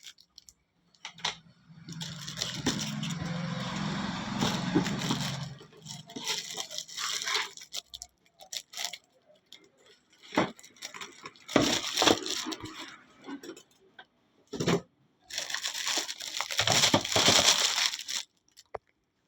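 Packaging being handled and opened: plastic wrap and box crinkling and tearing in irregular bursts, with a few short knocks in between.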